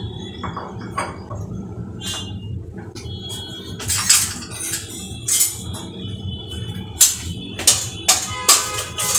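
Music with sharp percussion strikes that come more often in the second half, over a steady low hum.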